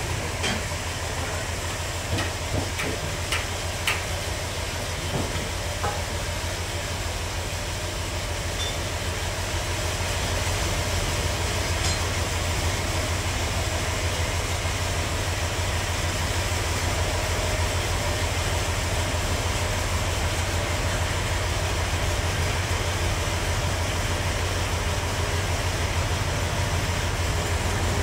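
Forklift engine running steadily as it drives with a heavy load of sawn slabs. Its low, evenly pulsing hum grows a little louder about a third of the way in, and a few light knocks and clatters sound in the first few seconds.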